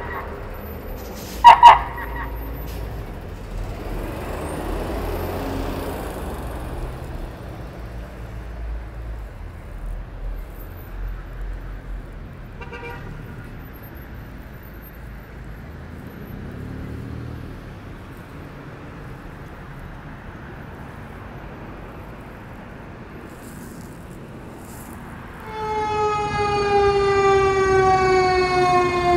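A short, loud horn blast from an emergency management command truck, then its engine running as it drives off and fades away. Near the end a fire rescue truck's siren comes in loud, its wail falling steadily in pitch.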